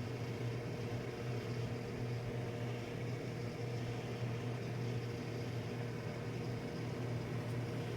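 Microwave oven running with a steady hum, heating a brown paper bag of popcorn kernels; no kernels are popping yet.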